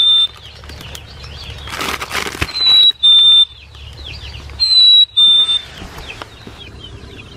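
A black-capped chickadee's clear whistled two-note "fee-bee" song, the second note lower, repeated about every two seconds. A plastic bag crinkles between the songs.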